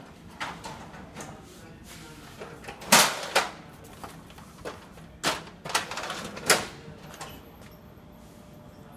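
Paper tray drawer of a Xerox WorkCentre copier being handled, pulled and pushed shut: a string of sharp plastic clacks and knocks, the loudest about three seconds in and again near six and a half seconds.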